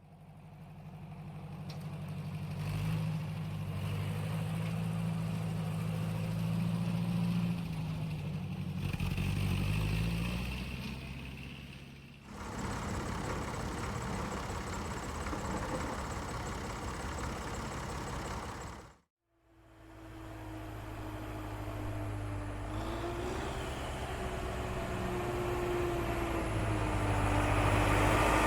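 A motor runs steadily with a low hum, in three stretches that each cut off abruptly. In the last stretch a whining tone wavers up and down in pitch alongside the hum.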